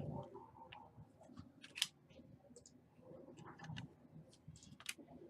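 Sports trading cards being handled at a table: a few sharp clicks and soft rustling as the cards and pack wrapper are moved.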